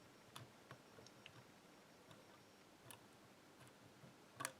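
Faint, irregular clicks and ticks of a lock pick working the pin stacks of an old Yale pin-tumbler rim cylinder held under a tension wrench, a few scattered ticks with the loudest click a little before the end.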